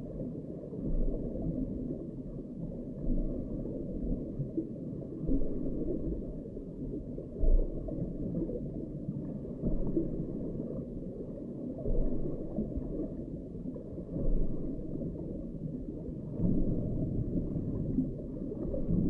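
Muffled, low underwater rumbling and sloshing picked up by an underwater camera, swelling about every two seconds, as a groundbait feeder on the lake bottom is jerked and dumps its bait.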